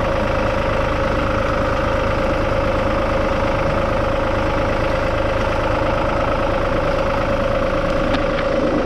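Vehicle engine idling steadily, with a constant hum and no change in speed.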